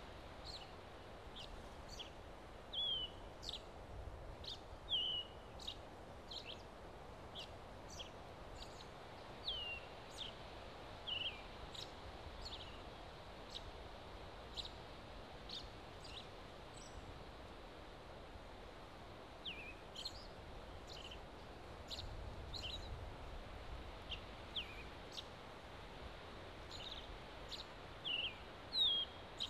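Small birds calling: short falling chirps every second or two, with sharp, high ticks between them. Under them runs a faint, steady hiss of wind in the trees.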